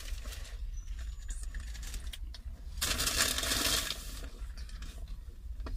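Handling noise of takeaway food and its packaging: small clicks and scrapes, then about three seconds in a loud rustle lasting a second and a half, over a low steady rumble.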